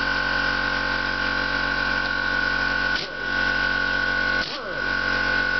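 Air impact wrench running with a steady high whine, spinning on the clutch centre nut. The whine dips and winds back up twice, about three and four and a half seconds in.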